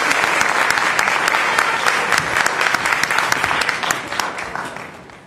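Audience applauding, a dense patter of many hands clapping that fades away over the last second or so.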